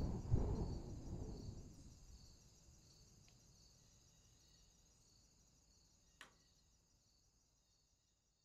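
A low rumble fades out over the first two seconds. Under it is a faint, steady, high-pitched outdoor chorus of calling animals, pulsing about once or twice a second, which fades away toward the end. There is one sharp click about six seconds in.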